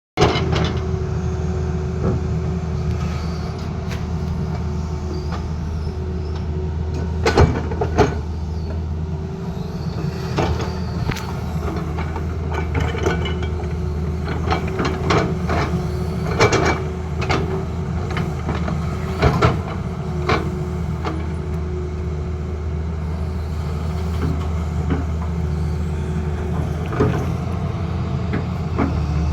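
Tata Hitachi excavator's diesel engine running steadily, with a steady whine and scattered sharp clanks and knocks.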